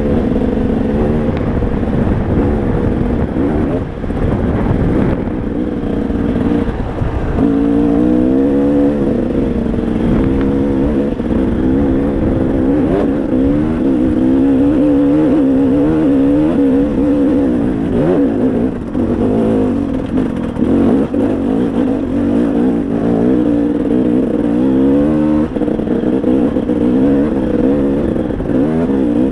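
Dirt bike engine revving up and down with the throttle as it climbs a rough trail, the pitch rising and falling every second or two.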